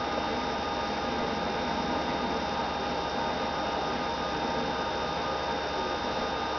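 Desktop computer running: a steady whir of cooling fans and a spinning hard drive, with a few thin, constant whining tones over it.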